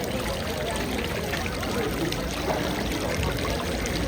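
Busy market ambience: a steady hubbub of many indistinct voices and footsteps, with no single sound standing out.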